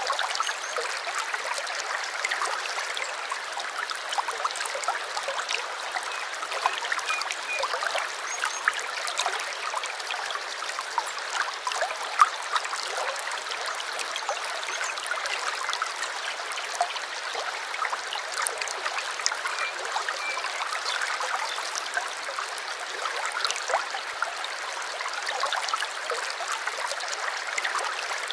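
A small stream trickling and babbling steadily, full of small splashes and drips.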